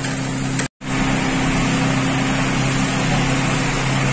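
An electric fan motor running steadily, a low hum under an even rush of air. The sound drops out completely for an instant just under a second in, then carries on unchanged.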